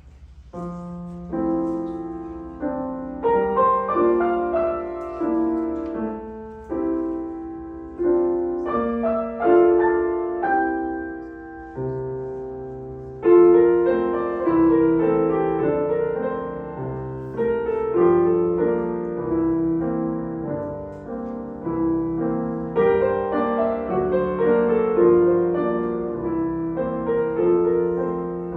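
Solo piano playing a classical teaching piece, the first notes sounding about a second in and then running as a steady flow of struck notes and chords.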